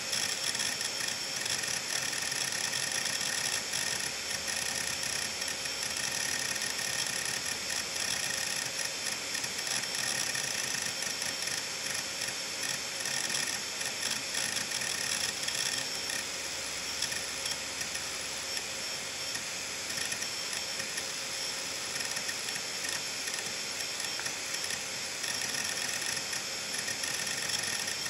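Seagate Medalist 8630 (ST38630A) hard drive running with its cover off: a steady high whine from the spinning platter under a rapid, continuous ticking and clattering of the head actuator seeking back and forth. The drive is thrashing because several large files are being written to many parts of the disk at once.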